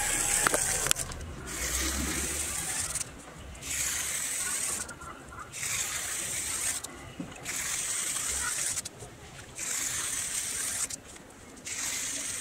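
A pronged comb tool scraping horizontal grooves through a wet rustic texture coat on a wall: about seven hissy strokes, each a little over a second long, repeating roughly every two seconds.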